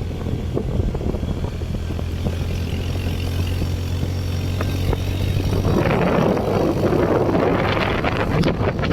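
A motor vehicle running, with a steady low engine hum. From about six seconds in, a louder rough, crackling noise with many short clicks joins it.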